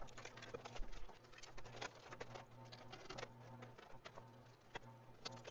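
Faint, irregular light clicks and taps from hands handling the opened VCR/DVD combo chassis, over a low hum.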